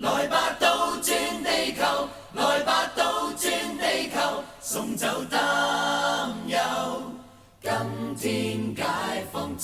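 Vocal music: voices singing in quick syllables with little or no instrumental backing, in an a cappella style, dropping away briefly about 7.5 s in before carrying on.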